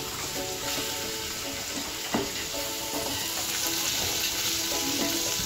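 Finely sliced onions sizzling as they fry in hot oil, stirred and scraped around the pan, the stage where they are cooked down until they turn reddish-golden. A sharp knock sounds about two seconds in.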